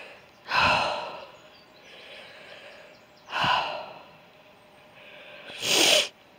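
A man's heavy breathing: three loud puffing exhales about two and a half seconds apart, the breath of a hiker winded by walking in the heat.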